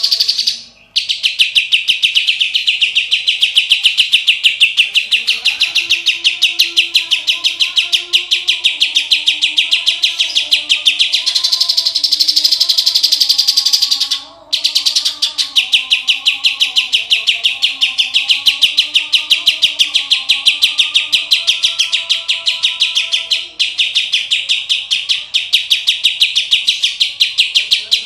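Greater green leafbird (cucak ijo) singing a long, fast chattering trill of sharp high notes, several a second, breaking off briefly twice, with its song filled with imitations of the kapas tembak and tengkek. Faint wavering lower tones sound beneath it.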